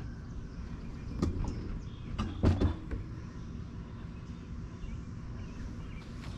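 A few knocks and clunks from a sun oven and a metal loaf pan being handled, the loudest about two and a half seconds in, over a steady low rumble.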